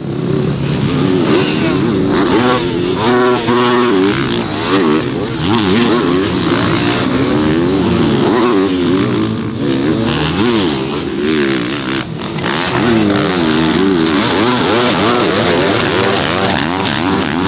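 Dirt bike engines revving hard on a motocross track, their pitch climbing and falling again and again as the throttle is worked.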